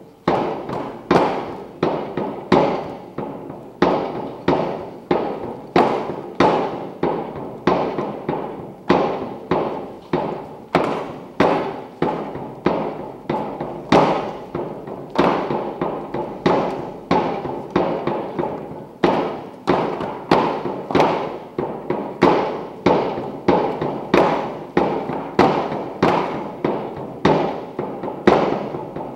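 Tibetan Rebe dance hand drums, flat frame drums on handles, struck with curved beaters by several dancers in unison. They keep a steady beat of about two strikes a second, each strike ringing briefly.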